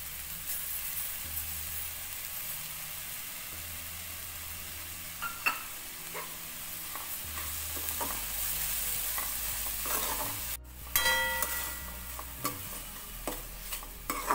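Grated raw mango sizzling in ghee in a kadhai, stirred with a metal spatula. A few sharp clicks and scrapes of the spatula against the pan come in the middle, and they come more often in the last few seconds.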